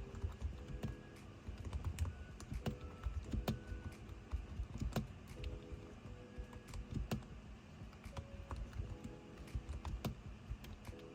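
Typing on a budget metal-cased gaming keyboard with swappable keycaps: an irregular run of key clicks, some struck harder than others.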